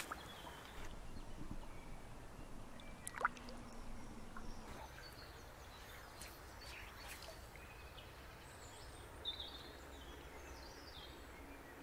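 Faint steady running of a shallow river over stones, with a few short bird chirps near the end.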